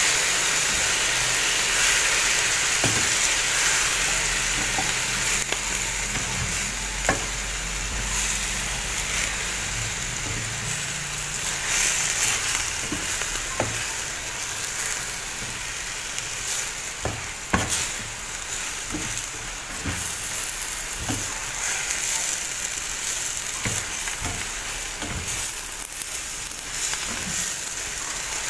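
Kangkong (water spinach) and cubed squash sizzling in a stainless steel skillet as they are tossed with a slotted spatula. The spatula clicks and scrapes against the pan every second or two, and the sizzle slowly eases.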